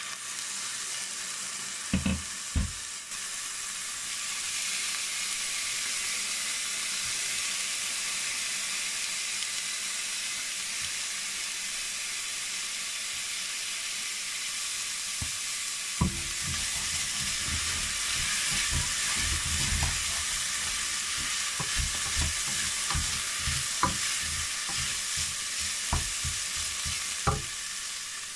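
Chopped red onion sizzling as it fries in a nonstick pot, with a couple of sharp knocks about two seconds in. From about halfway through, a wooden spoon stirs the onions, knocking and scraping against the pot.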